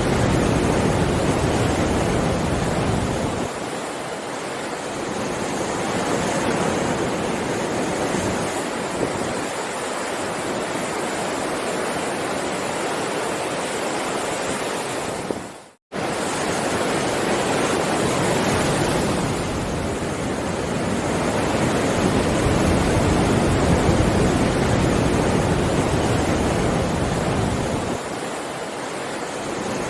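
Heavy ocean surf: a continuous wash of breaking waves that swells and eases slowly. About halfway through, the sound fades and cuts out for a split second, then comes straight back.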